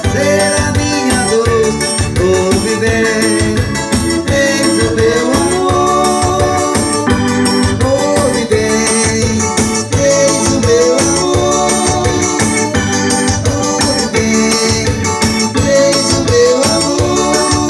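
Yamaha PSR-S arranger keyboard playing an instrumental break. An organ-like lead melody with sliding, bent notes runs over a steady drum-and-bass backing rhythm.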